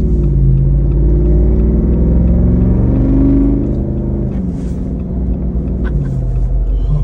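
Jeep Wrangler engine heard from inside the cabin, accelerating with its pitch climbing for about three and a half seconds, then easing off, over a steady low road rumble.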